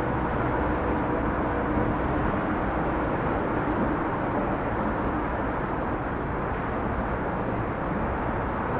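Steady low outdoor rumble with a faint steady hum running through it.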